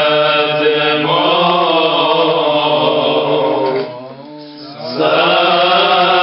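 A man's voice chanting a Syriac Orthodox liturgical hymn, with long held notes that glide slowly up and down. It breaks off for about a second near four seconds in, then goes on.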